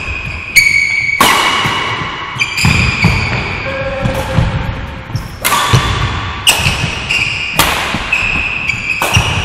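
Badminton doubles rally: about seven sharp racket hits on the shuttlecock, roughly a second apart, each ringing on in a large hall. Between the hits, court shoes squeak briefly on the sports floor and footsteps thump.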